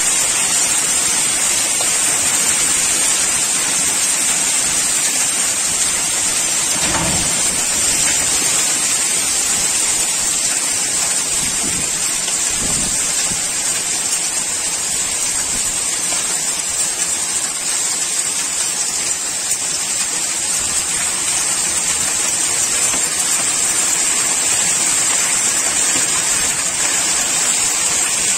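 Heavy rain and hail pelting down in a sudden violent thunderstorm with strong wind: a loud, steady hiss of falling water, with a few brief low rumbles about 7 and 12 seconds in.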